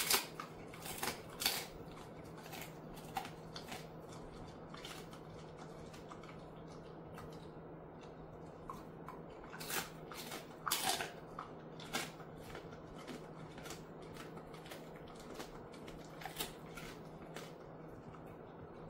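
Dog chewing a chicken-foot treat: irregular crisp crunches and clicks of bone and cartilage, a few louder cracks among them, over a faint steady hum.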